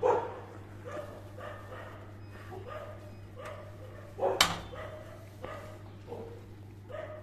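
A dog whining and yelping over and over, short high calls coming about every half second to a second, with louder yelps at the start and about four seconds in, over a steady low hum.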